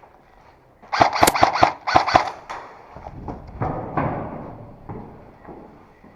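Airsoft gun firing a rapid string of about eight shots, followed by a few fainter knocks.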